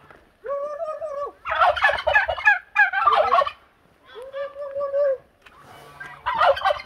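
Domestic turkeys gobbling: bursts of rapid rattling gobbles, the loudest about a second and a half in and again near the end, between two longer steady calls.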